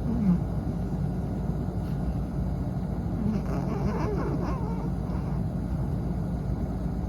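Long-coat Chihuahua snoring in its sleep: a steady low rumble, with a louder breath just after the start and another around the middle.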